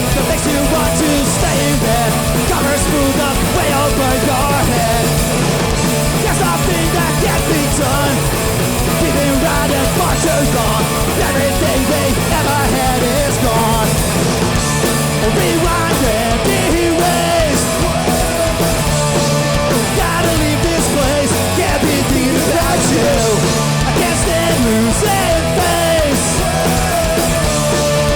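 Hardcore punk band playing loud and live: distorted guitars, bass and drums.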